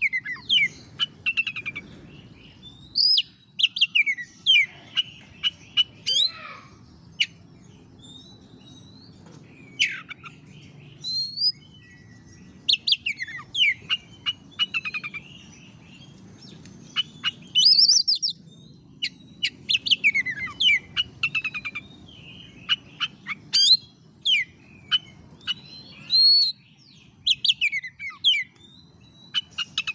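Oriental magpie-robin singing a varied song of sharp whistles, trills and chattering notes in bursts of a second or two with short pauses between, over a steady thin high hiss.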